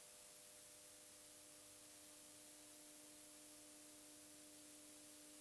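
Near silence: a faint steady hiss with a faint low hum underneath.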